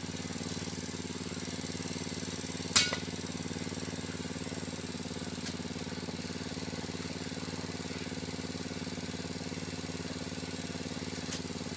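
Mitsubishi Canter truck's diesel engine idling steadily, with one sharp knock about three seconds in.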